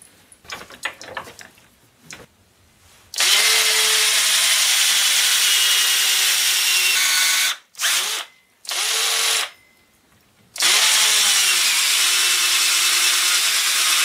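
Black & Decker Matrix 20-volt cordless drill driving a 1¾-inch hole saw through wood. A few light handling clicks come first. The drill then makes a long cut of about four seconds, gives two short bursts, and starts a second long cut. Its motor holds a steady pitch under load.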